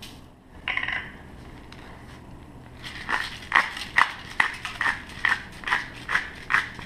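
Seasoning shaker shaken over a roast: dry granules rattling in short strokes, about two or three a second, starting about three seconds in. A brief sharper sound comes about a second in.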